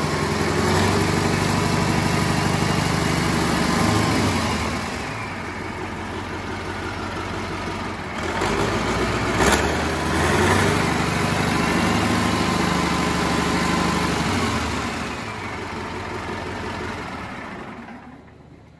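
Caterpillar 3408B V8 diesel engine running on a test stand after new rod and main bearings and a new oil pump. It speeds up and drops back twice, and the sound fades away near the end.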